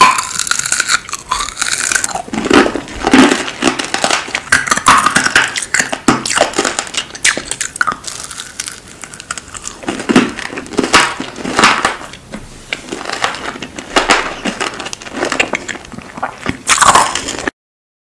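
Close-miked ASMR mouth sounds of eating a hard Chupa Chups lollipop: wet sucking, smacking and crunching in irregular, loud clicks. The sound cuts off suddenly near the end.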